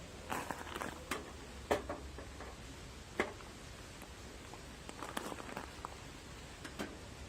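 Scattered light clicks and knocks of the metal wood-stove parts being handled and fitted together during assembly, a cluster in the first two seconds, one sharp knock a little after three seconds and more around five seconds.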